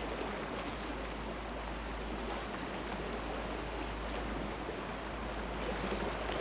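Steady rush of river water with faint bird chirps. A few footsteps on stones near the end.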